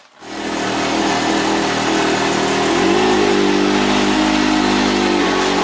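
Can-Am Maverick X3's three-cylinder Rotax engine firing up cold and settling into a steady idle, which rises slightly about three seconds in and eases back near the end.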